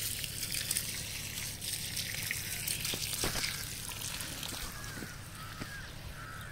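Water trickling steadily out of the emitter hole of a pressurised flat drip-irrigation tape.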